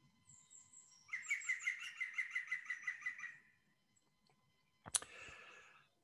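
Green woodpecker giving its laughing 'yaffle' call: a run of about fifteen quick ringing notes, about seven a second, lasting two seconds. A sharp click follows near the end.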